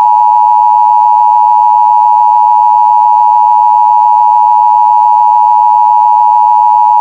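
Emergency Alert System attention signal: the steady two-tone alert tone, 853 Hz and 960 Hz sounded together, received over AM radio. It holds level and unbroken, the alert that comes ahead of the spoken test message.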